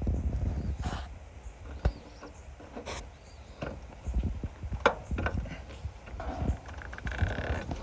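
Scattered clicks and knocks of hand tools and metal parts being handled while a furnace flame rollout switch is refitted, with rubbing and handling noise between them.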